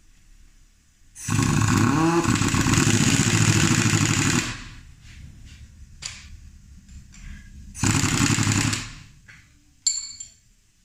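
Pneumatic impact wrench hammering on a nut: one run of about three seconds, then a short burst of about a second, followed by a sharp click near the end.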